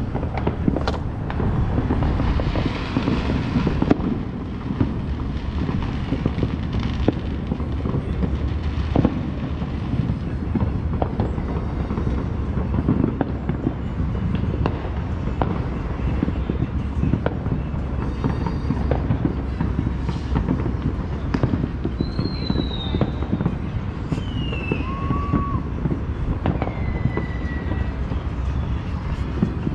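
Fireworks and firecrackers going off across a city neighbourhood: a steady run of pops and bangs over a low rumble, with a louder stretch about two seconds in. In the second half there are a few short falling whistles.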